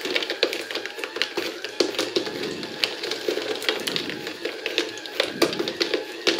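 Glass marbles clicking and clattering irregularly against each other and the cardboard steps and tracks, over the steady hum of the small DC gear motor driving a cardboard escalator.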